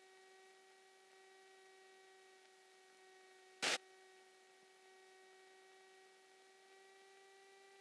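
Faint, steady electrical hum on the aircraft intercom audio, with one short sharp click about three and a half seconds in.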